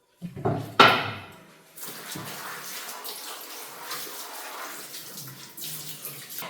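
A tap running steadily into a sink, after a loud clatter with a ringing decay just under a second in.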